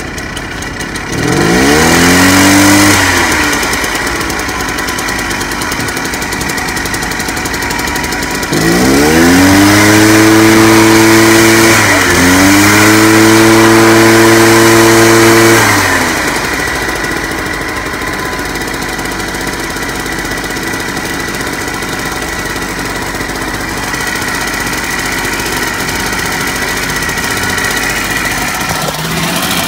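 Small gasoline engine just pull-started on choke after priming, revving up about a second in and then running steadily. It revs up again for about seven seconds with a brief dip midway, then drops back to a steady run.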